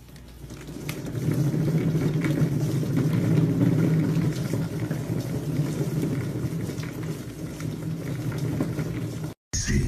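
Cat exercise wheel spinning under a running cat: a steady low rumble that builds up over the first second or so, then cuts off suddenly near the end.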